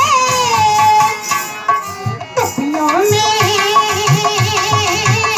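Kajri folk song: a man singing in a high, women's-style voice, holding a long wavering note that breaks off about two seconds in before the next line begins, over a steady hand-drum beat.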